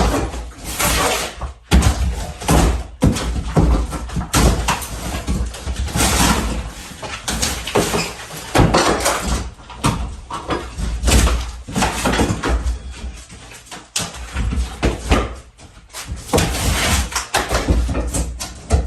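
Interior demolition of a mobile home: irregular bangs, knocks and crashes with rough scraping and tearing in between, as wall, ceiling and floor materials are pried off and torn out.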